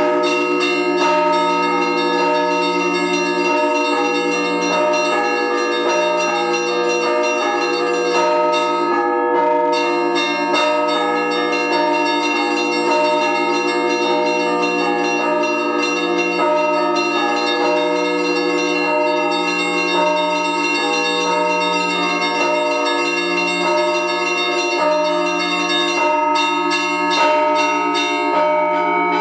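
Russian Orthodox church bells rung as one continuous, dense peal, with the clappers struck against the stationary bells. Rapid strikes of many bells ring over a steady low hum.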